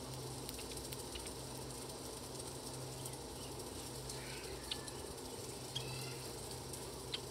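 A few short chirps and sharp clicks from small seed-eating birds at backyard feeders, about four to six seconds in and again near the end, over a steady low hum.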